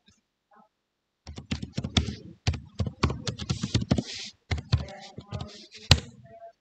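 Computer keyboard typing: a quick, irregular run of keystrokes starting about a second in, with one sharp clack near the end the loudest.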